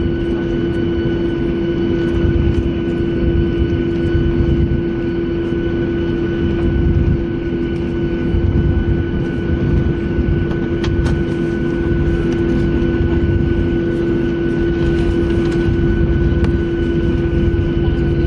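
Boeing 737-800's CFM56-7B jet engines running at high thrust during the takeoff roll, heard from inside the cabin over the wing. It is a loud, steady engine tone over a constant low rumble.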